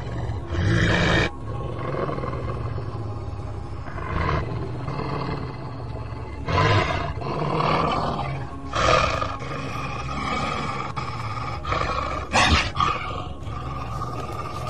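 Beast roars voicing an attacking werewolf, about five loud bursts a couple of seconds apart, over a sustained background music bed.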